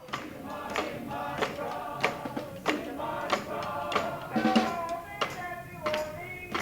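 Street brass band playing: horns carry a melody over a steady drum beat of about three hits every two seconds.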